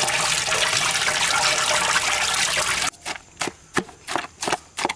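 Water running or pouring in a steady rushing hiss, cut off abruptly about three seconds in. It is followed by a quick, uneven run of sharp knocks.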